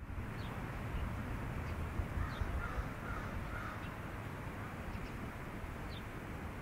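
Steady outdoor background rumble with a few bird calls, bunched between about two and four seconds in, and some faint short high chirps.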